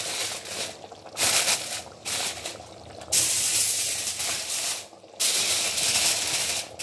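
Aluminium foil crinkling as it is crumpled and pressed down over a cooking pot, in several bursts with short pauses between them.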